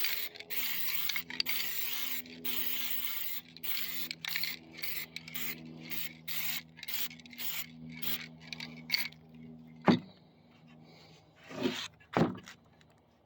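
Aerosol spray paint can spraying in a run of short hissing bursts that stop about nine seconds in, followed by three sharp knocks.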